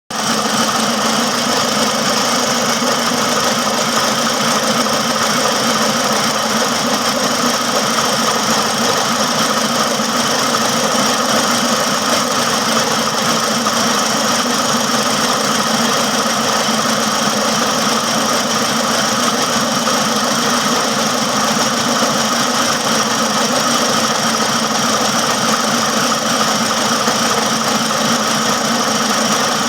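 Engine running steadily at a constant speed, with no change in pitch throughout.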